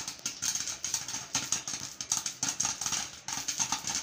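Popcorn kernels popping in hot oil in a covered pot: a dense, irregular run of sharp pops, many each second.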